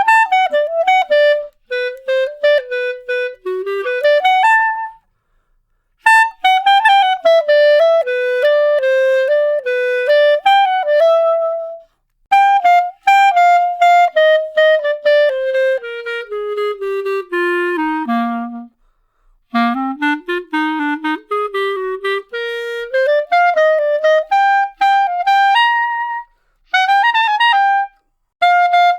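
Solo clarinet playing a melody in phrases of short notes with brief pauses between them. Midway through it runs steadily down to a low note, pauses, then climbs back up.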